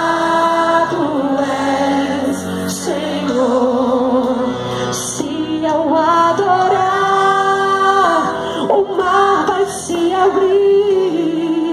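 A woman singing a worship song into a handheld microphone, with long held, wavering notes.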